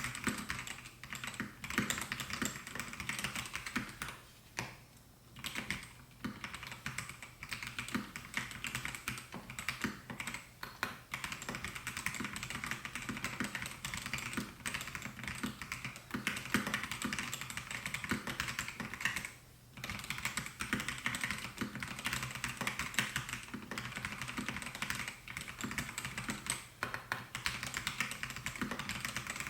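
Continuous fast typing on a Melgeek Mojo68 mechanical keyboard with white Pro switches, a dense stream of key clacks. It breaks off briefly about five seconds in and again past the midpoint.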